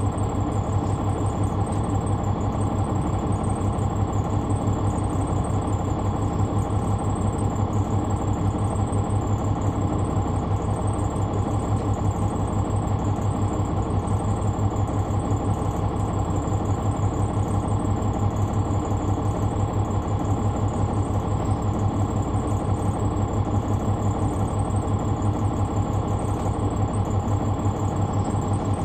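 Caterpillar C-9 ACERT inline-six diesel engine of a Neoplan AN459 articulated bus, heard on board, running steadily at one unchanging pitch.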